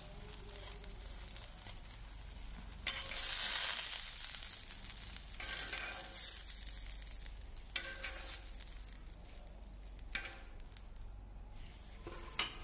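Food sizzling on a hot ribbed griddle. The sizzle surges louder about three seconds in for a couple of seconds, with smaller flare-ups later.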